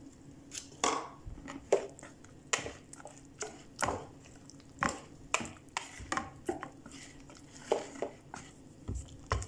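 Wire whisk beating pancake batter in a plastic mixing bowl: irregular clicks and scrapes of the wires against the bowl, about one or two a second.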